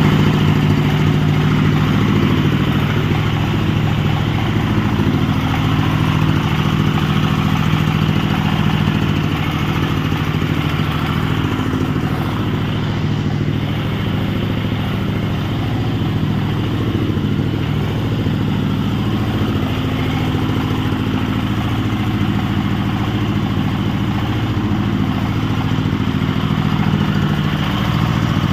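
Engine running steadily at a constant speed, with no revving or load changes.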